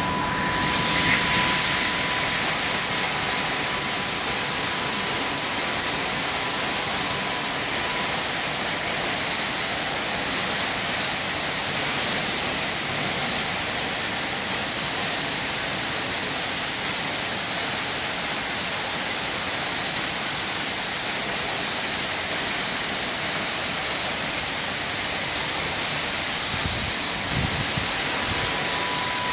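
High-pressure water jets of a touchless automatic car wash spraying a car: a loud, steady hiss of spray that starts about a second in. A thin, steady high tone runs under it for the first several seconds and returns near the end.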